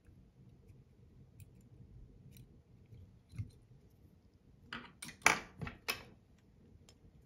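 Fly-tying tools being handled at the vise after a whip finish: a faint click, then about a second and a half in which four short clicking, rustling sounds come one after another, the second the loudest.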